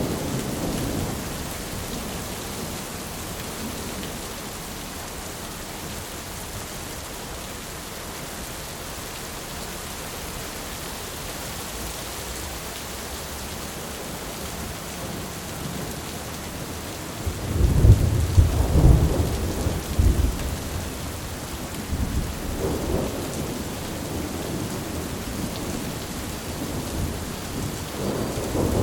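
Heavy rain falling steadily, with rolling thunder. A low rumble fades out in the first seconds. Well past the middle comes a loud, deep thunder rumble lasting a few seconds, followed by weaker rumbles and another one building near the end.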